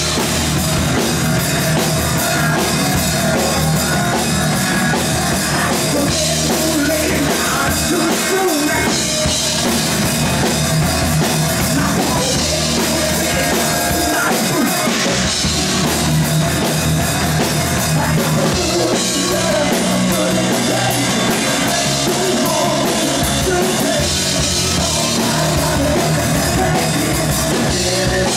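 A live hard rock band playing loudly: drum kit, distorted electric guitar and bass guitar, with a singer on lead vocals.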